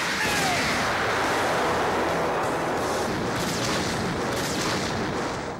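Animated cannon-blast sound effect from a pachinko machine's reach animation: the particle cannon fires in a long, dense rushing explosion of noise that dies away near the end.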